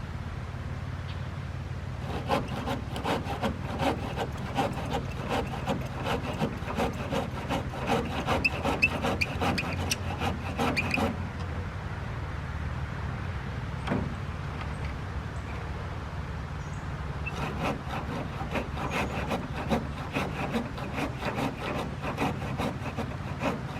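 Hand saw cutting wood in quick, even back-and-forth strokes, in two spells with a pause of several seconds between them. A steady low hum runs underneath.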